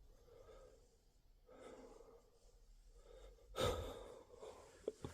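A person breathing quietly, with soft sighing breaths and one loud exhale about three and a half seconds in. A couple of sharp ticks follow near the end.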